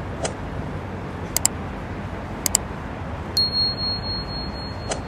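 Steady rumble of a tour boat underway on the river, overlaid with a subscribe-button sound effect: sharp mouse clicks in two quick pairs, then a ringing notification chime held to the end.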